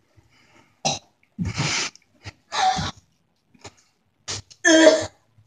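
A boy gagging and coughing in about five harsh bursts, the loudest near the end, retching at the taste of fried salmon-skin chips.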